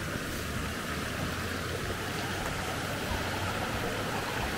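Steady rush of a flowing stream, with a low rumble of wind on the microphone, growing slightly louder near the end.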